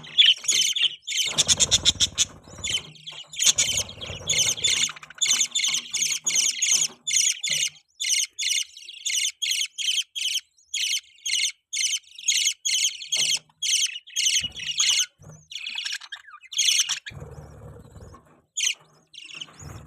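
Budgies (budgerigars) chirping in a rapid, near-continuous chatter of short high chirps, about two to three a second, thinning out briefly near the end.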